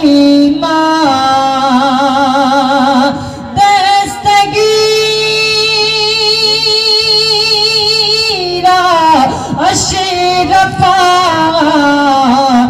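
A male naat reciter singing through a stage microphone, holding long melismatic notes with a wide vibrato. The longest note is held through the middle, then the pitch swoops down and back up.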